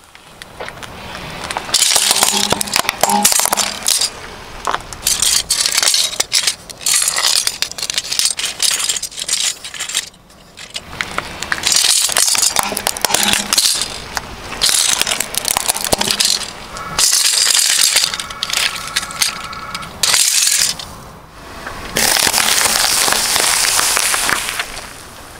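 A car tyre crushing one object after another: plastic cracking and snapping as utility knives break under it, and the squelch and crunch of a squashed tube and an apple. Loud stretches of crackling and sharp cracks come in several separate bouts with short pauses between them.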